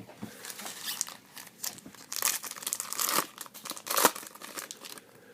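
Trading-card pack wrapper crinkling and tearing open as the cards are pulled out, with sharp snaps about three and four seconds in.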